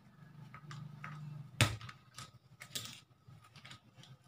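Small hand stapler clacking shut once, sharply, about one and a half seconds in, stapling a paper strip onto paper, with a few softer clicks after it.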